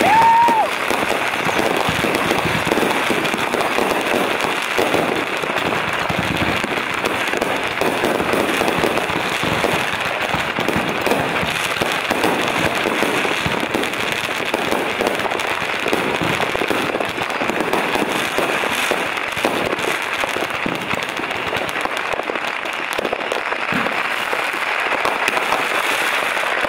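Fireworks finale: many aerial shells and crackling stars bursting at once, a dense, continuous crackling and popping with no let-up.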